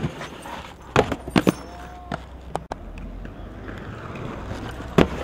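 Inline skates clacking against a ledge and concrete: one sharp, loud clack at the start, a quick run of three knocks about a second in, and another loud clack near the end.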